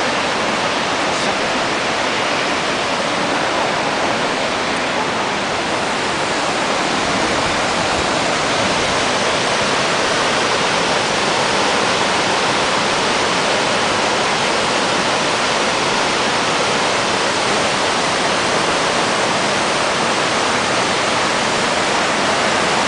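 Nachi Falls, a single-drop waterfall about 133 m high, giving a loud, steady rush of falling water that does not let up.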